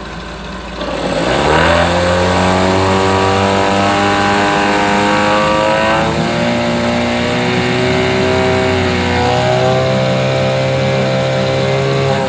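9.9 hp Mercury outboard motor revving up from idle about a second in, holding steady at higher throttle, and dropping back near the end. It runs well, its starting trouble traced to an old rotted fuel line rather than the carburetor.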